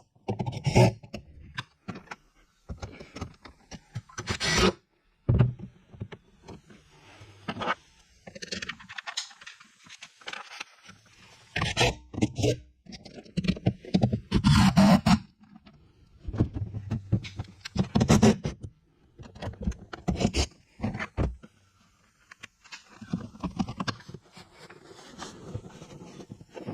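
Irregular bursts of scraping and clicking as car body parts and fasteners are handled and worked on, with short pauses between bursts.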